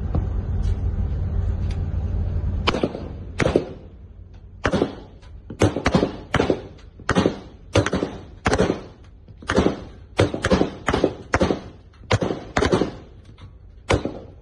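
Rifle shots fired one at a time from the ship at an approaching explosive-laden boat, about twenty sharp cracks at one to two a second, each with a short echo. A low rumble comes before the shots begin, about three seconds in.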